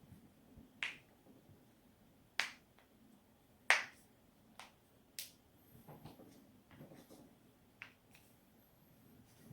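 Spinal joints cracking: a series of six or seven sharp, separate pops at irregular intervals, the loudest a little under four seconds in, with faint rustling of body movement between them.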